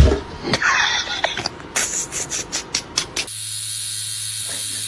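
A quick run of sharp clicks and knocks, then from about three seconds in a steady hiss with a low hum.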